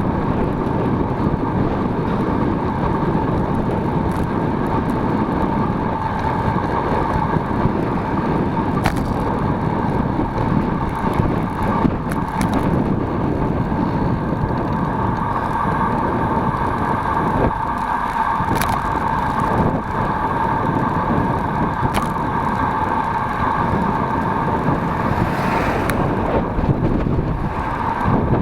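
A road vehicle in motion: a steady, even drone with a constant hum in it, unbroken for the whole stretch.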